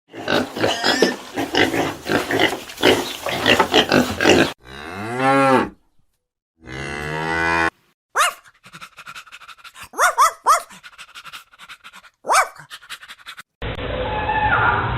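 A string of different animal calls, one after another, among them a cow mooing twice near the middle; short rising chirps follow, and near the end a buzzing starts.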